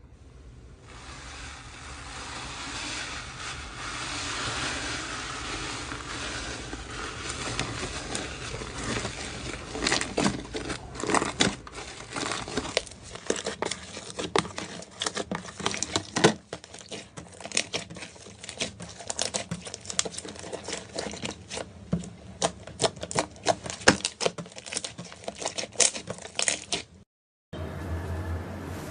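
Slime being squeezed and handled, with many small sharp crackling pops that grow denser about ten seconds in.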